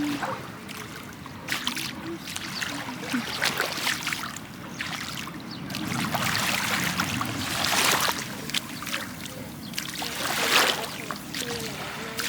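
Small sea waves washing in over the shoreline, a steady rush of surf that swells into louder washes about halfway through and again near the end.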